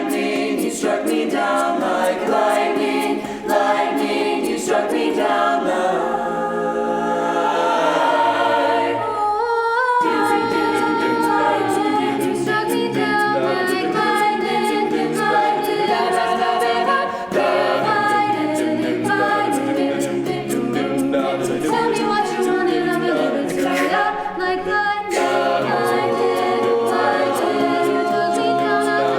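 A cappella vocal group singing layered harmonies without words, with sharp percussive clicks, plausibly vocal percussion; the voices thin out briefly about eight seconds in, then return.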